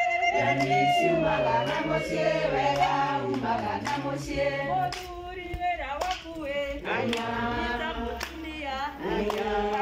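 A group of women singing together in chorus, several voices overlapping.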